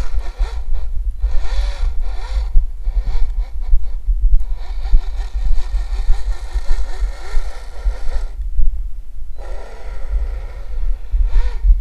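Electric drive of an RC snowmobile whining in about five throttle bursts, its pitch swooping up and down; the longest burst lasts about four seconds in the middle. A constant low rumble runs underneath.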